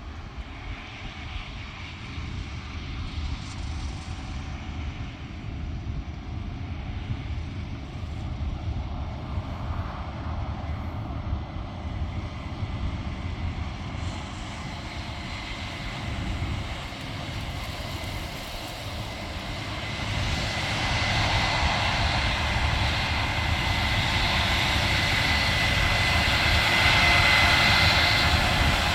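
Combine harvester running steadily during soybean harvest, a continuous engine rumble; about two-thirds of the way through it grows louder and a steady high whine comes up over the machinery noise.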